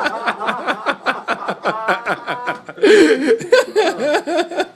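People laughing and chuckling in quick, rapid pulses, with a louder burst about three seconds in.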